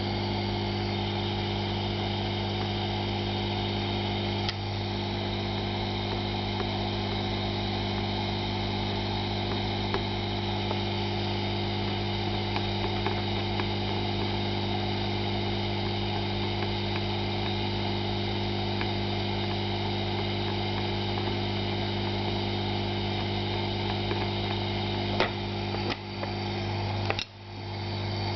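Hot-air rework station's blower running with a steady hum and a few faint clicks; near the end the sound briefly drops out and comes back.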